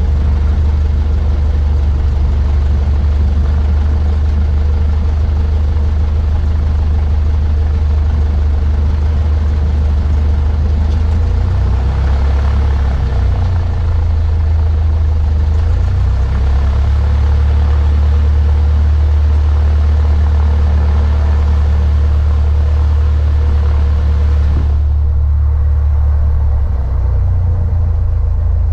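Cessna 152's four-cylinder Lycoming engine and propeller running at low power, a steady low drone heard from inside the cockpit. Its pitch shifts briefly around the middle.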